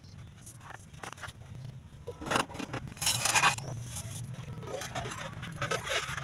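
Damp laundry being handled on a clothesline: cloth rustling and being shaken out, with scattered light clicks, the loudest rustle about three seconds in, over a faint low hum.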